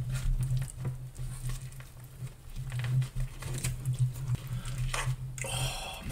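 Plastic fork scraping and poking through saucy loaded fries in a cardboard carton: a run of small clicks and scratches, with a louder rustle near the end, over a steady low hum.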